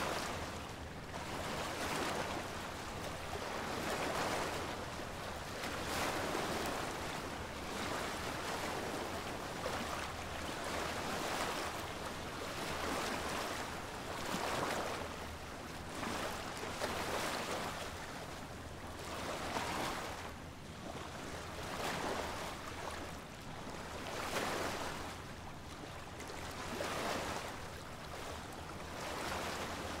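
Small waves washing onto a sandy beach, the surf rising and falling in a swell about every two to three seconds.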